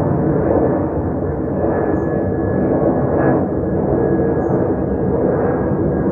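Jet airliner climbing out overhead after take-off: steady, loud jet engine noise with a faint thin tone running through it.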